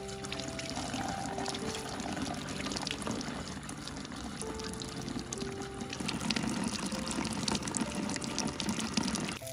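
Running water splashing and trickling, under background music with held notes; the water sound stops abruptly near the end.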